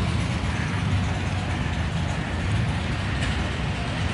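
Motorcycle engine running at idle: a steady low rumble with a rattling, uneven beat.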